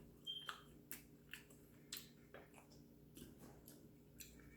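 Faint chewing and wet mouth clicks of a person eating seafood close to the microphone: a string of soft smacks about every half second, over a low steady hum.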